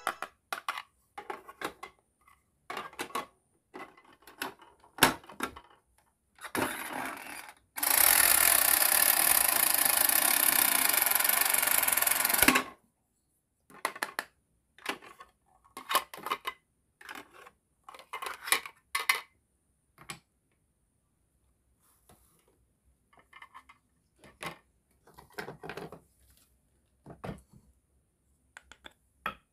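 Plastic toy kitchen pieces handled: light clicks and taps as toy bread slices, a toy toaster and plastic tongs are moved about. About eight seconds in, a loud steady hiss runs for roughly five seconds and cuts off suddenly.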